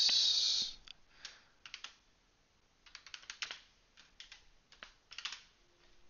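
Typing on a computer keyboard: several short, irregular clusters of key clicks.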